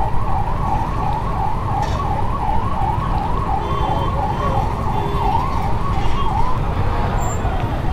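Emergency vehicle siren warbling rapidly up and down, about three cycles a second, cutting out about six and a half seconds in, over the low rumble of the ride.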